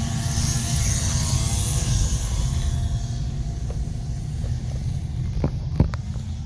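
Inside a 2013 Honda Civic on the move: steady engine and road rumble with a low hum, and a rushing hiss that fades after about three seconds as the car slows. A few sharp clicks near the end.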